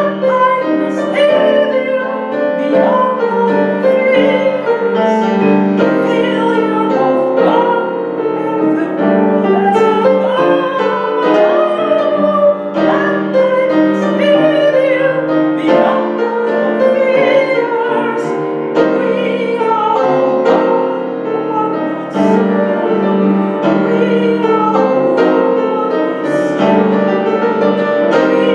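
A song with piano accompaniment and a voice singing in a classical, operatic style, with vibrato on held notes.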